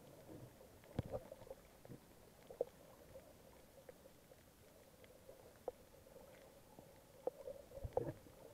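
Muffled underwater sound picked up through a camera's waterproof housing: a faint steady hum with scattered soft clicks and knocks, a few louder ones about a second in and near the end.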